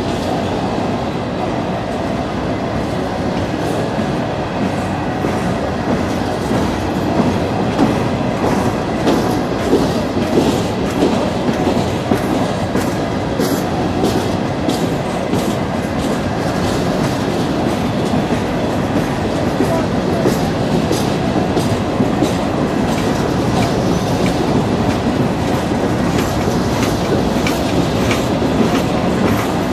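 Coal hopper cars of a freight train rolling past slowly. Their steel wheels click over the rail joints above a steady rumble, and the clicks come thicker from about seven seconds in.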